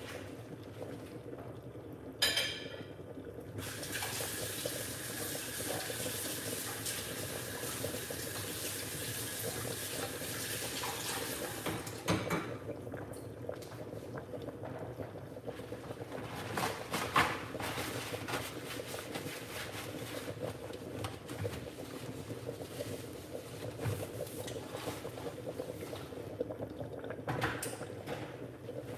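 Soup boiling in a lidded aluminium pot on an electric hot plate, bubbling and popping under the lid with a few louder pops. A stretch of steady hissing starts a few seconds in and stops about twelve seconds in.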